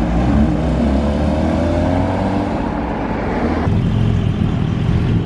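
Porsche 992 GT3's naturally aspirated flat-six pulling away, its pitch rising as it accelerates. About three and a half seconds in, a second engine takes over abruptly: a Porsche 718 Cayman GT4's flat-six running at low revs as it rolls out.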